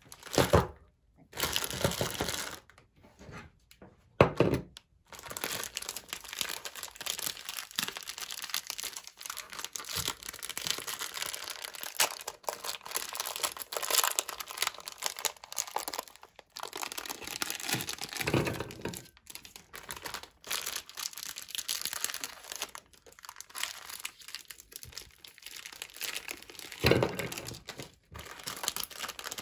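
Plastic foil biscuit wrappers crinkling and tearing as packets are torn open and emptied, with a few short thumps along the way.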